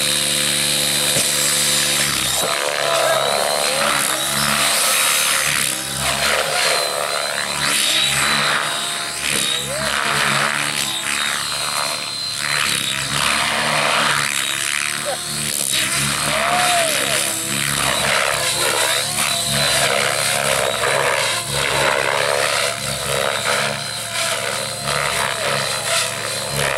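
Align T-Rex 700 RC helicopter flying, its rotor and drivetrain whine sounding steadily, with short pitch swoops as it manoeuvres.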